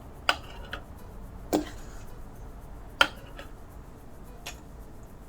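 A ladle and glass jars clinking while the jars are filled: about five sharp clinks, each with a short ring, the loudest about three seconds in.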